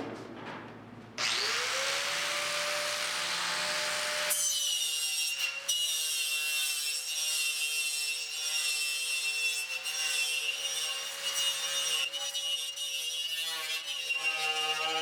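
A handheld power tool spins up about a second in, its pitch rising and then settling. From about four seconds in it runs steadily under load, abrading paint off the car's steel bodywork.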